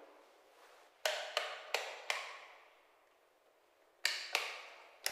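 Sharp knocks or taps on a hard surface: a quick run of four, then two more close together, and one more at the end, each ringing out briefly in a bare room.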